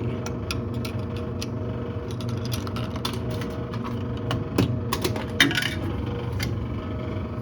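Quarters clinking through a vending machine's coin mechanism and dropping into the coin-return slot: a scatter of sharp metallic clicks, with two louder clinks about halfway through, over a steady low hum.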